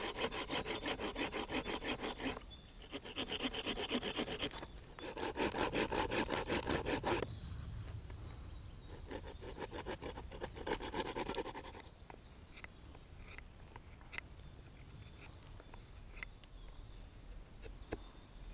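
Small folding hand saw cutting through a green stick in three runs of fast back-and-forth strokes. A lighter run of sawing follows, which stops about twelve seconds in, leaving only a few faint clicks of handling.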